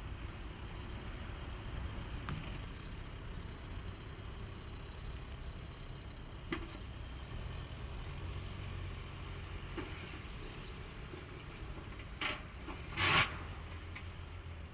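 A Skoda Yeti's engine running low and steady as the SUV crawls over aluminium driving ramps, with occasional metallic knocks from the ramps under the wheels. The loudest are two clanks close together near the end.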